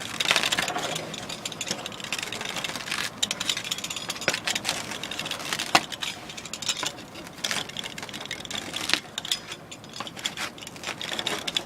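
Pizza cutter crunching through the crisp, grill-baked crust of a pizza sitting in its cardboard box: a continuous crackling crunch with scattered sharper clicks.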